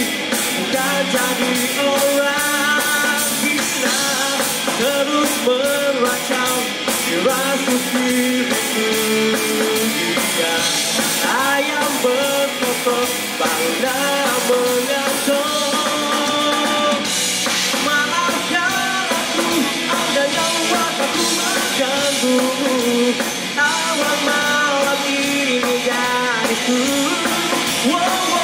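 Live rock band playing: a male lead singer over electric guitar, bass guitar and a drum kit.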